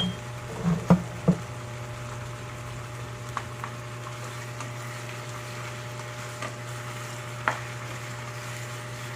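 Chicken pieces frying in a pan with a steady sizzle, and a spatula knocking against the pan a few times about a second in and once or twice later as the chicken is stirred.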